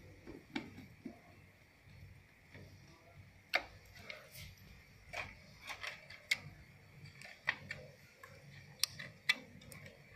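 Irregular small clicks and light taps of a screwdriver and plastic wire connectors being worked on a TV mainboard and its metal bracket, about a dozen spread unevenly, the sharpest in the second half.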